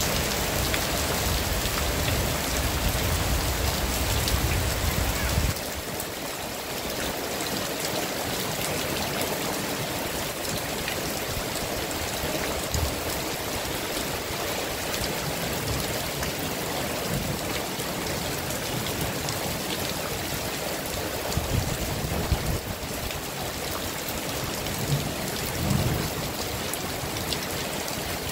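Heavy rain falling steadily, an even hiss of drops on surfaces. A low rumble runs under it for the first five seconds or so and stops abruptly, and a few soft low thuds come later.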